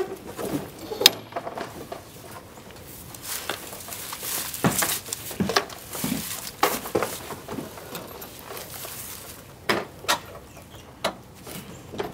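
Irregular clicks and knocks of an enclosed cargo trailer's side door and metal latch being worked, with people stepping about inside the trailer. A sharp click comes about a second in, and a cluster of knocks near the end.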